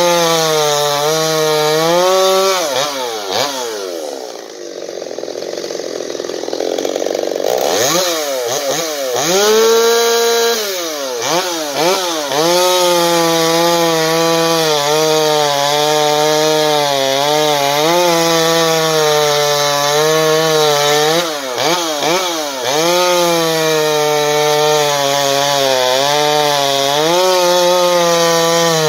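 Stihl MS250 two-stroke chainsaw, muffler baffle removed and timing advanced, running near full throttle while cutting wood. Its pitch sags briefly several times under load, drops to a low note a few seconds in, then revs back up about eight seconds in.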